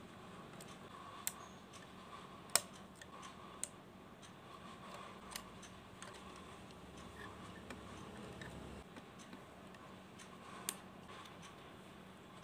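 Lego bricks being handled and pressed together: a few sharp, scattered plastic clicks, the loudest about two and a half seconds in, over a faint steady hum.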